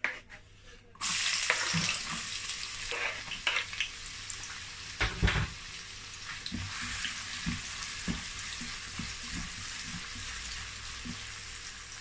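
Chopped onions dropped into hot vegetable oil in a non-stick pan. A sudden loud sizzle starts about a second in and settles into steady frying, with a few knocks and scrapes from a wooden spatula stirring them.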